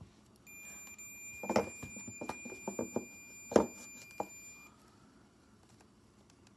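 A steady, high electronic beep held for about four seconds, with a series of sharp clicks and knocks from parts of the power window switch being handled, the loudest two about a second and a half in and near the end of the beep.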